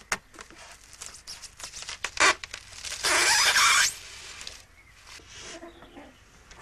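Large metal needle forced through a sheet of expanded polystyrene: a few sharp cracks and snaps, then a loud grating rasp lasting about a second, starting about three seconds in, as it breaks through the foam.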